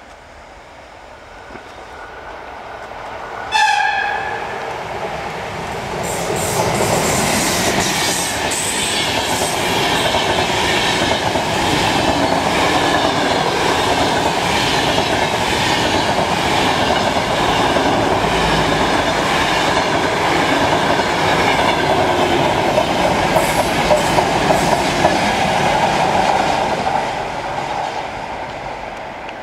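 Sr2 electric locomotive sounds one short whistle blast as it approaches, then the express train rushes past with a steady rumble and clickety-clack of wheels over rail joints, fading as the last coaches go by near the end.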